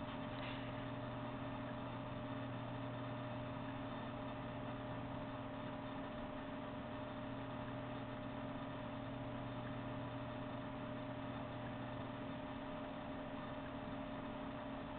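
Steady hum with a few unchanging tones over a constant hiss.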